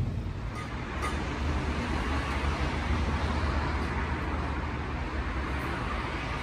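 Street traffic: a vehicle passing, its tyre and engine noise swelling and then fading over a steady low rumble.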